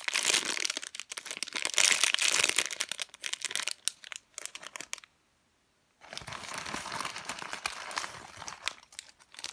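Clear plastic packaging bag crinkling as a foam squishy toy is squeezed and handled inside it. The crinkling cuts to dead silence for about a second around the middle, then starts again.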